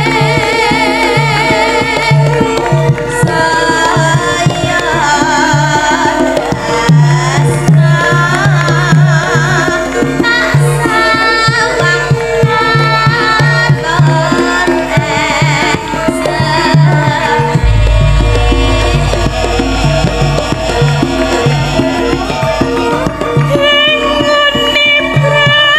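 A female Javanese sinden singing a song with a wavering vibrato, over live instrumental accompaniment led by a hand drum beating a steady rhythm. A deep bass comes in about two-thirds of the way through.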